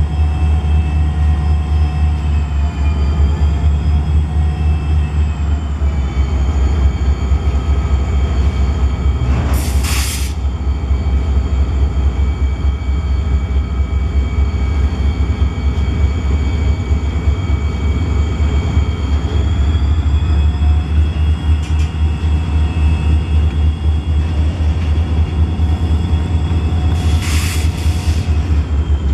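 Diesel-electric freight locomotives, ELS 500 and ILSX 1338, running under way with a deep steady drone and pitched engine notes that shift in pitch a few seconds in and again past the middle, pulling empty log flatcars along the rails. Two short bursts of hiss stand out, about ten seconds in and near the end.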